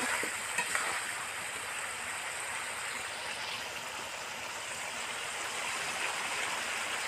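Marinated chicken pieces sizzling steadily in oil in a wide pan as they are dry-fried (kosha), with a few light spatula clicks in the first second.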